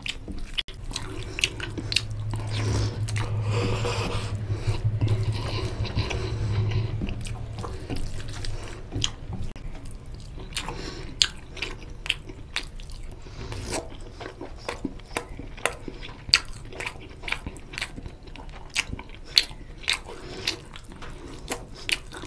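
Close-miked eating of oily mutton curry and rice by hand: for the first several seconds a denser wet squishing as rice and gravy are worked on the plate, then wet chewing and mouth smacking with many short sharp clicks.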